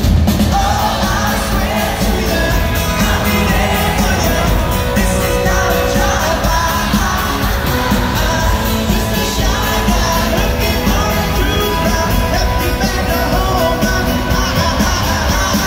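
Live pop-rock band playing loudly: drums, bass, guitars and keyboard under a male lead vocal.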